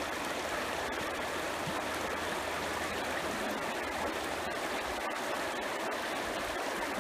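Flowing river water running steadily: an even, unbroken rushing noise.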